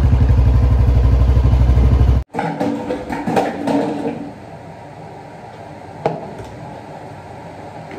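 A loud, low, rapidly pulsing engine rumble, cut off abruptly about two seconds in. Then plastic clatter and knocks as a protein shaker bottle and powder scoop are handled, with a sharp click about six seconds in.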